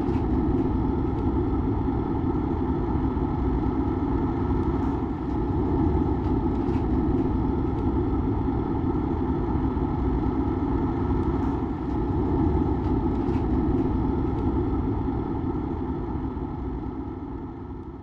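Narrowboat engine running steadily, fading out near the end.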